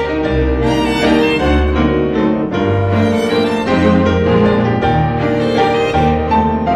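Background music: bowed strings, violin and cello, with piano, playing sustained notes over a steady bass line.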